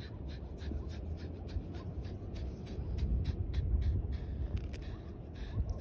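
Metal-detecting pinpointer probing in wet sand, giving a fast, even train of scratchy ticks, about five a second, as it signals a nearby metal target, over a steady low rumble.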